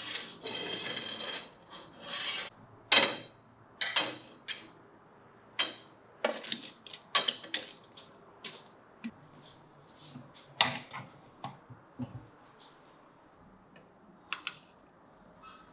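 Metal shashlik skewers clinking and knocking as they are handled over the grill, with a scraping rub in the first second or so. The clinks come irregularly and thin out in the second half.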